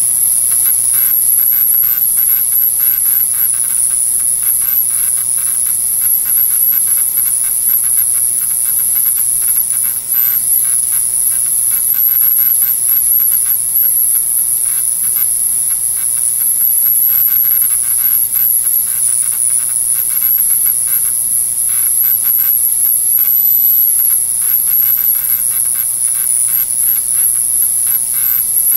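Ultrasonic cleaner running: a steady high-pitched whine over a fine crackling hiss, with a low hum beneath.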